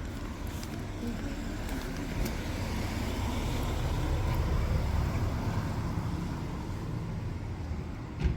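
Steady low rumble of road traffic or a car, swelling a few seconds in and easing off again, with a sharp click near the end.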